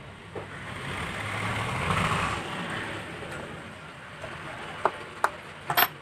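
A road vehicle passing by, its noise swelling and fading over a few seconds. Near the end come four sharp plastic clicks as the opened phone's frame is handled.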